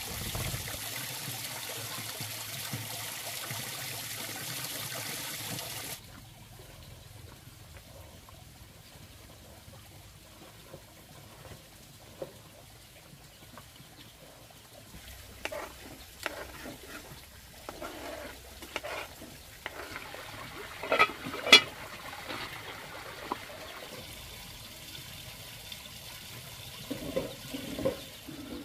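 Running water with an even hiss, changing at an edit to a quieter background. Scattered knocks and clatters follow, the loudest about three-quarters of the way through.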